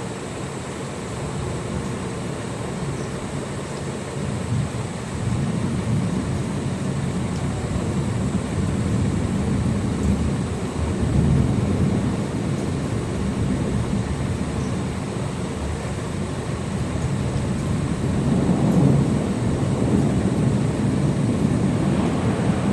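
Rolling thunder: a long, low rumble that swells and eases in waves, with no sharp crack.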